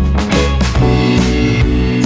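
Background music with a drum beat and guitar.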